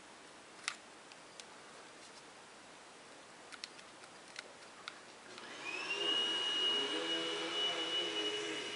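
A few faint light clicks of a small Phillips screwdriver working the bottom screws of an iPhone 4. About five seconds in, a steady high machine whine starts up, rising a little in pitch and then holding, and drowns out the clicks.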